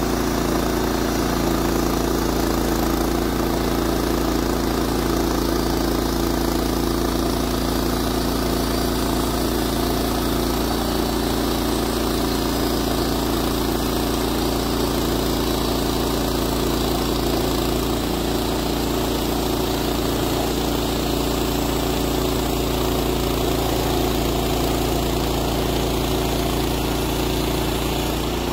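Woodland Mills HM126 portable bandsaw mill's 14 hp gas engine running at a steady pitch while the band blade cuts a board from a Douglas fir log.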